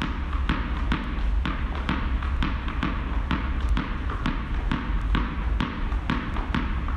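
Tennis ball bouncing on a gym floor in a steady rhythm, about two bounces a second, over a steady low hum.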